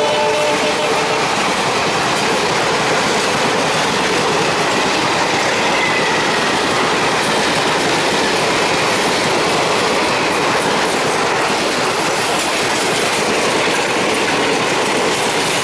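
Passenger coaches of an express train rolling past at close range: a steady, loud rush of wheel and rail noise, with the wheels clattering over the rail joints.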